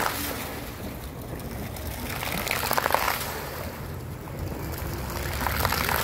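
Fountain water jets spraying and splashing into the pool, a rushing hiss that swells three times, about every three seconds.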